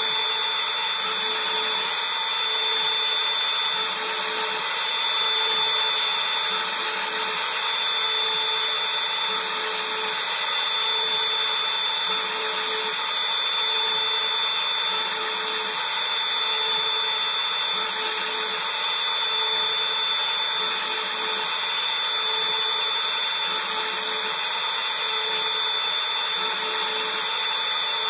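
Bosch Colt router spindle on a Taig CNC mill running at high speed with a steady high-pitched whine, as a quarter-inch two-flute carbide end mill cuts a bait mold under flood coolant.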